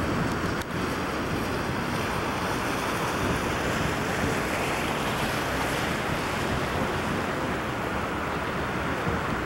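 Steady rushing noise aboard a moving canal tour boat: wind on the microphone mixed with the wash of water along the hull.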